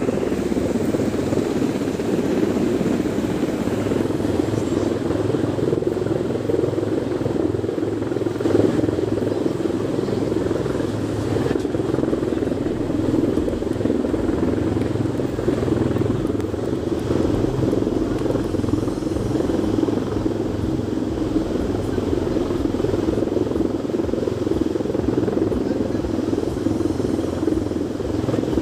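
A steady engine drone with a fast low throb underneath, holding even throughout.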